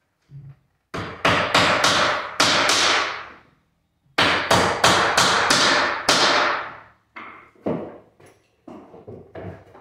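Hand hammer driving small nails into laminate on a stair step. Two quick runs of blows, about four a second, each ringing on, then lighter, spaced taps.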